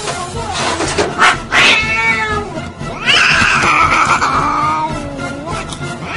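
A cat yowling: a shorter drawn-out call about two seconds in, then a long one that drops in pitch and trails off.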